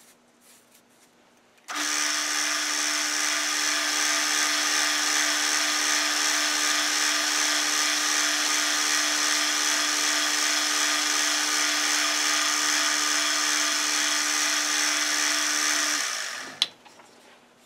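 Metal lathe running under power on a thread-cutting pass, single-pointing a 6 TPI double-start leadscrew thread. The motor and gearing start abruptly about two seconds in, run at a steady pitch, and stop near the end.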